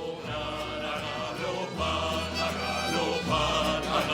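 Opening of a song: instruments and voices over a held bass line whose note changes about two seconds in and again near the end, getting gradually louder.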